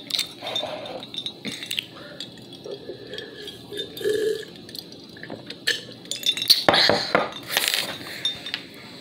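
A clear glass tumbler clinking as it is handled and tipped up to drink from. There are several sharp glassy clinks, the loudest cluster about two thirds of the way through.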